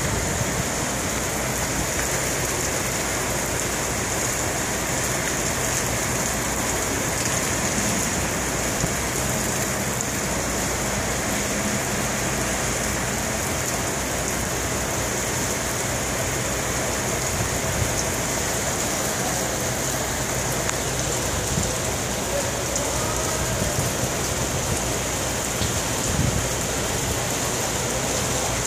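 Torrential hurricane rain pouring steadily onto a paved parking lot.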